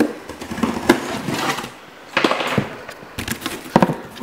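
Cardboard delivery box being handled and its flaps pulled open: irregular scraping and rustling of cardboard, with a sharp knock about a second in and a couple of clicks near the end.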